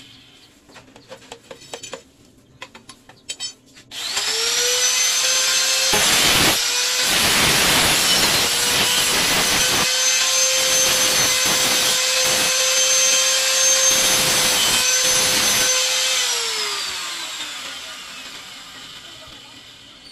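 A handheld power tool cutting a rod. Its motor spins up to a steady high whine about four seconds in, and the cutting noise rises over it three times as the blade bites into the rod. The motor is then switched off and winds down to a stop. A few light clicks come first, from the rods being handled.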